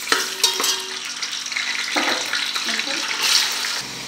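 Raw chicken pieces sizzling in hot oil in a metal pot as they start to sear, while a slotted steel spoon stirs them and now and then clicks against the pot.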